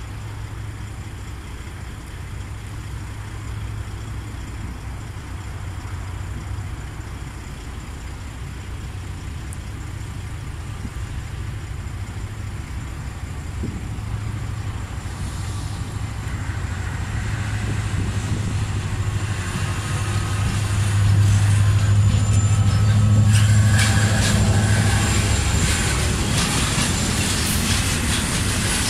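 Europorte Vossloh G1000 diesel-hydraulic locomotive approaching with a train of tank wagons, its engine running with a low steady hum that grows louder. It peaks about three quarters of the way in, as the locomotive passes. Near the end the tank wagons roll by, their wheels clicking over the rails.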